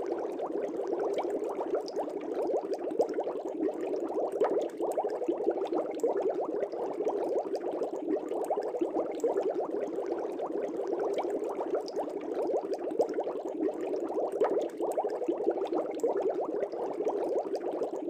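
Aquarium air bubbles rising and breaking at the water surface in a steady, dense bubbling, with many small pops overlapping.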